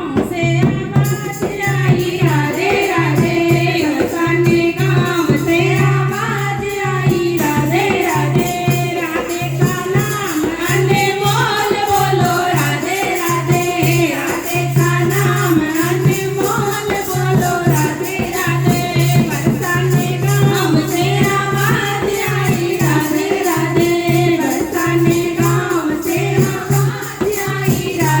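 Hindi devotional bhajan music: a voice singing a melody over fast, steady jingling hand percussion, with a low held note that comes and goes underneath.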